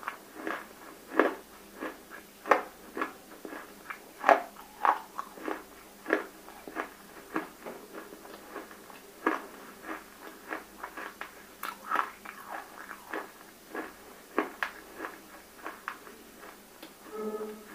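Close-miked chewing of water-soaked roasted edible clay (nakumatt): irregular crisp crunches, some loud and some soft, several times a second.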